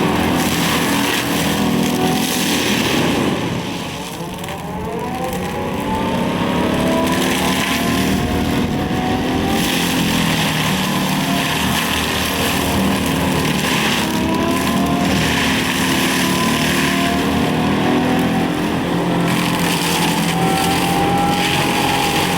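Excavator diesel engine running hard, driving a Seppi Star FC hydraulic mulcher head. About three seconds in, the pitch and level drop as the machine bogs under load, then climb back to a steady working speed.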